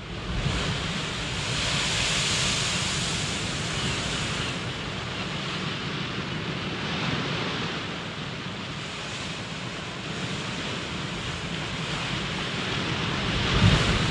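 Ocean surf: waves breaking and washing ashore in a continuous rushing noise that swells and ebbs, with a louder crash near the end.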